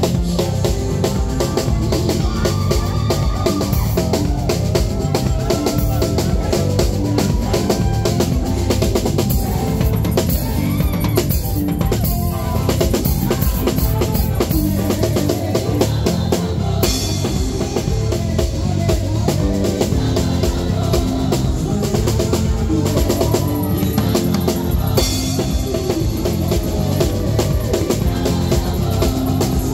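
Gospel choir singing over a live drum kit, the drums keeping a steady beat throughout.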